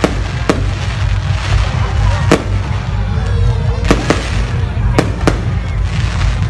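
Fireworks display: about seven sharp shell bursts at irregular intervals over continuous crackling.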